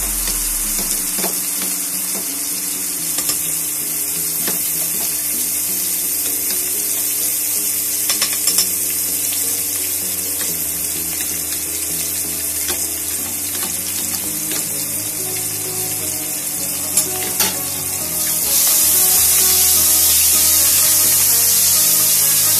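Chopped onion sizzling in hot oil in a non-stick pot, a steady frying hiss, with a few light knocks of a wooden spoon on the pot. Near the end the sizzle gets louder as the onion is stirred.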